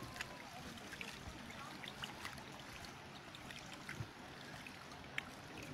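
Faint trickle of shallow spring water running over the travertine terraces, with scattered small splashes and drips.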